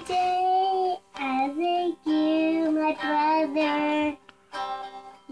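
A young girl singing, holding long notes in short phrases with brief breaks, accompanied by a strummed hollow-body electric guitar.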